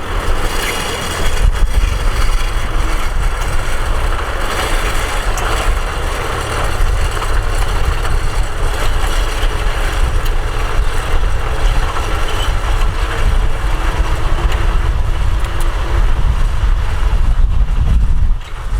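Tractor engine running steadily, with a heavy low rumble.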